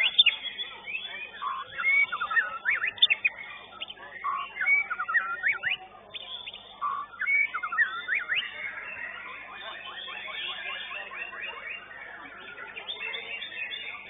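White-rumped shama (murai batu) singing: short phrases of quick upswept whistles about every second and a half, then from about eight seconds in a fast run of short repeated notes.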